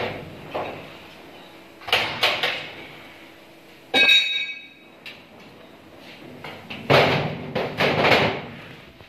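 Sheet steel of an almirah being handled: knocks and rattles against the steel frame, with one sharp ringing metal clang about four seconds in. Near the end comes a longer scraping clatter as a large steel panel is moved across the frame.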